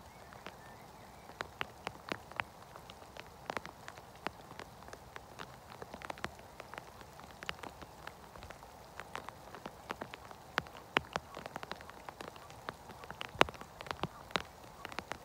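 Rain falling, its drops ticking sharply and irregularly on a nearby surface over a faint steady hiss.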